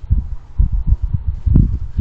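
Irregular low rumbling bursts of wind buffeting the outdoor security camera's built-in microphone.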